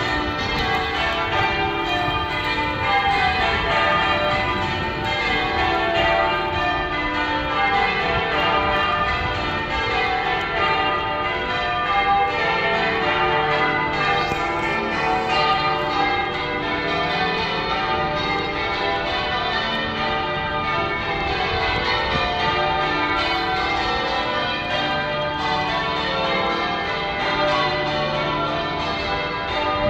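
Church bells rung in changes: a continuous run of overlapping bell strikes, each bell sounding in turn in shifting order, with the tones ringing on into one another.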